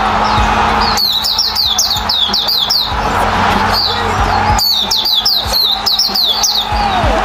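Hume's white-eye (Zosterops auriventer) singing: runs of quick, high, downward-slurred chirps, several notes to a run, repeated with short pauses between them.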